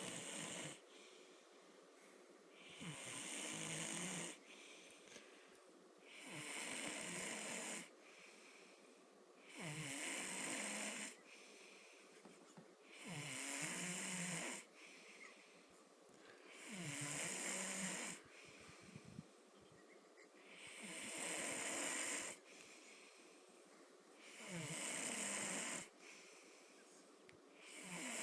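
A sleeping man snoring steadily, a loud rasping snore about every three and a half seconds, each lasting about a second and a half, with quieter breathing between.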